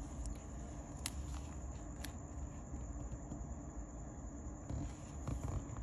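Faint handling of a roll of washi tape and a paper planner page as a strip of tape is laid down and pressed on, with two light ticks about a second apart over a low steady hum.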